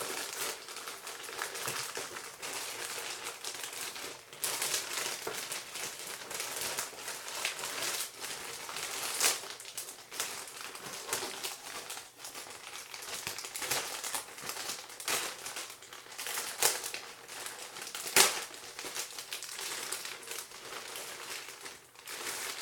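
Packaging crinkling and crackling as it is cut and torn open with a pocket knife, a continuous run of small crackles with two louder sharp snaps, about 9 and 18 seconds in.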